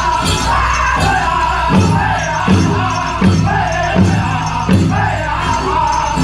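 Powwow drum group singing a chicken dance song over a big drum struck in a steady beat, about one stroke every three quarters of a second.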